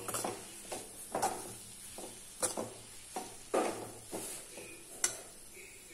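Metal spoon stirring chopped banana flower in a metal pan, scraping the pan in about ten short, uneven strokes.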